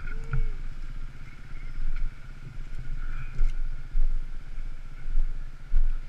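Dual-sport motorcycle running along a dirt trail: an uneven low engine rumble with a faint steady high whine over it.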